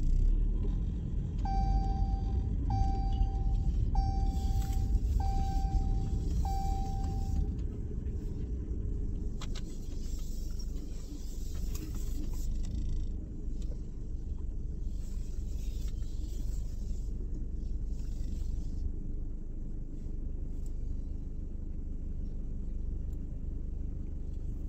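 Car running with a steady low rumble inside the cabin. Early on a dashboard chime beeps five times, evenly spaced a little over a second apart.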